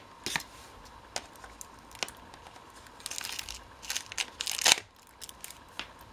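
Clear plastic blister packaging crinkling and clicking as a small knife and fingers pry a sachet out of its tray. There are scattered sharp clicks at first, then a denser run of crinkling from about three seconds in, loudest near five seconds. A faint steady tone sits underneath.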